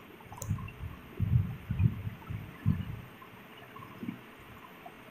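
Flat spatula stirring ground spices into hot ghee in a kadai: a run of dull, irregular low knocks and scrapes, with a faint sizzle of the frying masala underneath.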